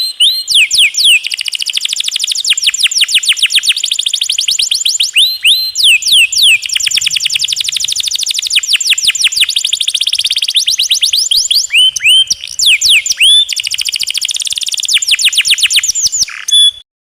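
Domestic canary singing long rolls: rapid trains of many quick, falling notes, repeated evenly and broken by brief pauses between phrases. The song cuts off suddenly near the end.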